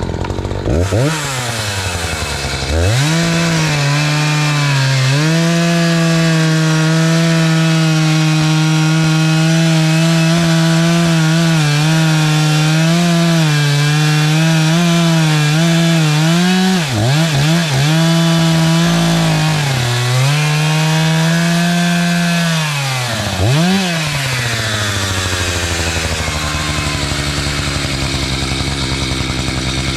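Two-stroke gasoline chainsaw with a freshly sharpened chain revving up and cutting into a log, running at high revs with a few brief dips under load, then easing to a lower speed near the end.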